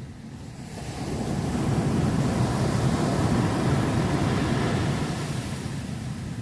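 Ocean waves washing ashore: one surge builds about a second in, runs loudest through the middle, then recedes.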